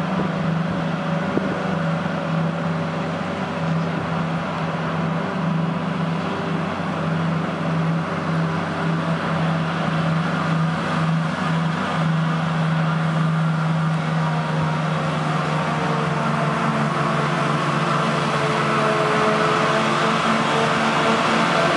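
Claas Jaguar 970 self-propelled forage harvester chopping wheat for silage, with a Fendt tractor pulling the dumper alongside: a steady engine drone with a strong low hum and the rush of the chopper. It grows a little louder in the last several seconds.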